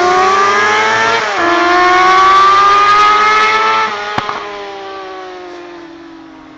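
Suzuki GSX-R 600 K6 inline-four sportbike with a Micron shorty exhaust accelerating hard at full throttle, its pitch climbing, with a quick upshift about a second in. The pitch climbs again, then about four seconds in the note drops and fades steadily as the bike pulls away.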